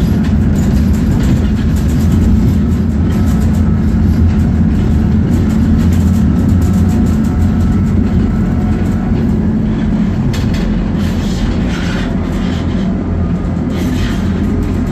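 Tatra T4D tram running along the track, heard from inside the passenger cabin: a steady low rumble with scattered clicks from the wheels on the rails.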